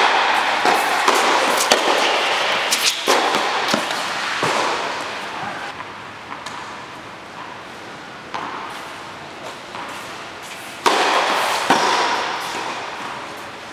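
Tennis rally on an indoor court: sharp pops of the ball off racket strings and the court, echoing in the hall, stopping about four to five seconds in. A sudden louder burst of sound comes near eleven seconds.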